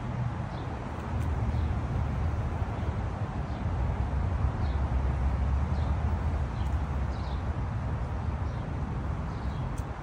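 Outdoor ambience: a steady low rumble with faint, short bird chirps repeating about once a second.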